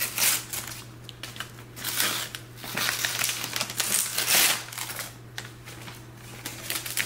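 Gift-wrapping paper being torn and crinkled off a present by hand, in irregular bursts of rustling. The loudest burst comes about four seconds in.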